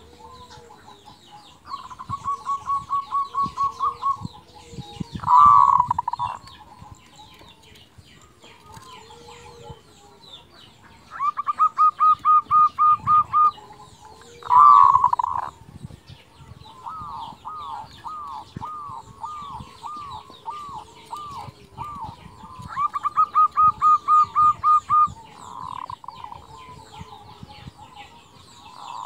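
Zebra dove (perkutut) cooing. Fast rattling runs of short notes each end in a louder coo, and this comes about three times, with a slower string of separate coos in between.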